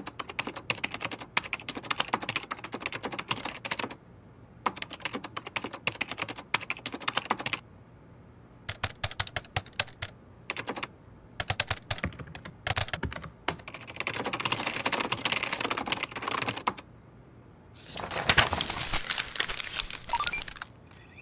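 Rapid typing on a keyboard: quick runs of key clicks broken by several short pauses.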